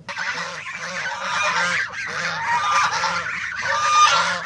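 A flock of white domestic geese honking and calling over one another in a continuous clamour.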